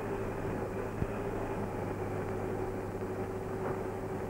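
Steady machine hum with a constant pitched tone running through it, and a single sharp click about a second in.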